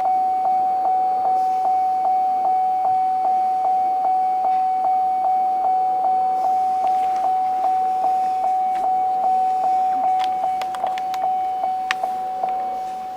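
Electronic chime ringing over and over at one pitch, about two dings a second, while a tune is being loaded into the truck's computers; a few sharp clicks come near the end.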